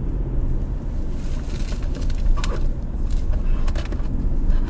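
Steady low rumble of a car's engine and cabin, with a few faint clicks.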